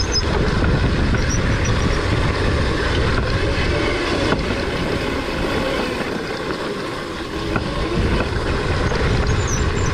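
Electric pit bike riding fast over a dirt trail: heavy wind buffeting on the microphone and tyre and chassis noise over gravel, with a faint electric motor whine that rises and falls with speed.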